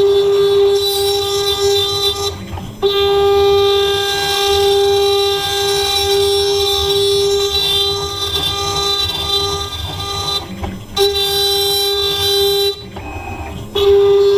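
CNC 6040 router spindle at 24,000 RPM with an end mill cutting aluminum: a loud, steady high-pitched tone with overtones that breaks off briefly about two and a half seconds in and twice near the end. Short hisses of WD-40 are sprayed onto the cutter about a second in and again near the end.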